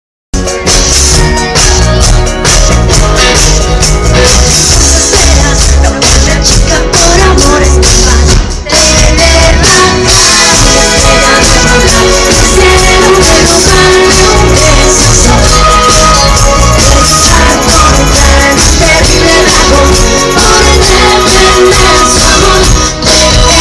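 Loud live band music at a concert sound check: a pop-rock band playing with a strong bass beat, and a voice singing over it.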